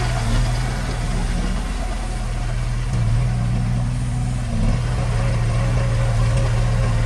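Diesel engine of heavy construction machinery running steadily with a low, even note that shifts slightly a few seconds in.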